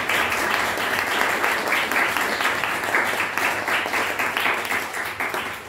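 Audience applauding, thinning out toward the end.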